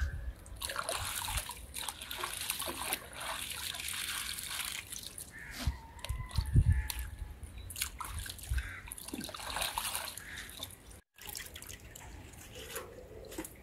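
Water sloshing and dripping as hands swish and squeeze wet cabbage leaves in a wheelbarrow full of water, with small irregular splashes. The sound drops out for a moment about eleven seconds in.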